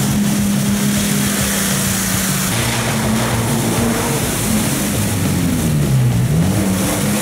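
Off-road jeep engine running, its revs holding steady, then dropping and climbing back about six seconds in, over a steady hiss.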